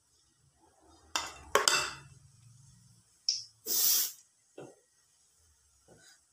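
A metal spoon knocking and scraping against a steel bowl of fritter batter, in a few separate clinks. A short, loud hiss comes about four seconds in.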